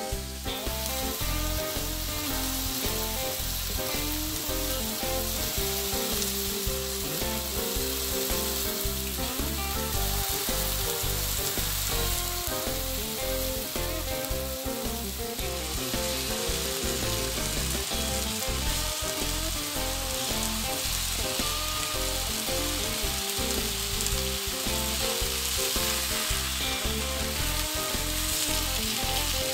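Ground beef patties sizzling steadily as they sear in canola oil in a hot cast-iron skillet.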